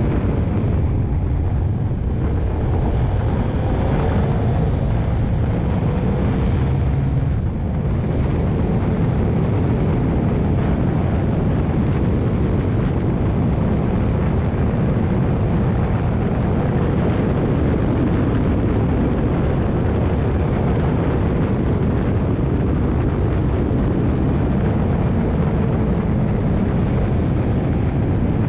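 Motorcycle ridden at road speed: a steady rush of wind noise over the microphone with the engine running underneath, its faint tone shifting in pitch a few seconds in.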